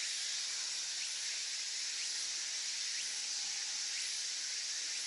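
Steady high-pitched insect chorus, with faint short rising chirps about once a second.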